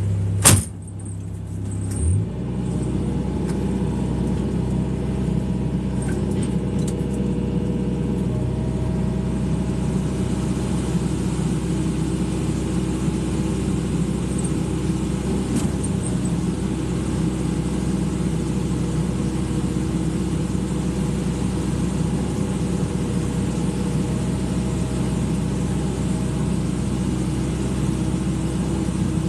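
Excavator's diesel engine running steadily. About half a second in there is one sharp knock, and the drone dips briefly, then picks back up around two seconds in.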